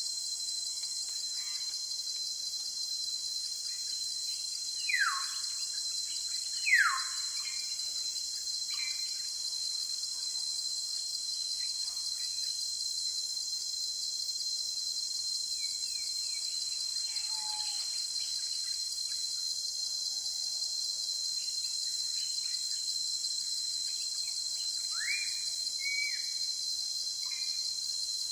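A steady, high-pitched insect chorus of crickets or cicadas, with a bird calling over it in sharp whistled notes that slide downward. Two loud down-slurred whistles come about five and seven seconds in, and more follow near the end.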